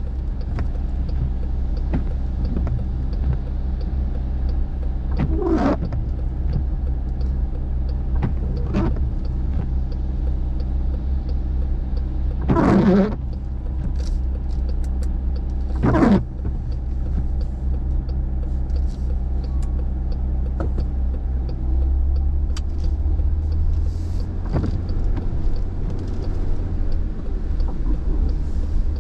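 Car engine idling steadily, heard from inside the cabin, with the windshield wipers swishing across the wet glass four times. Near the end the low engine hum grows louder as the car pulls away.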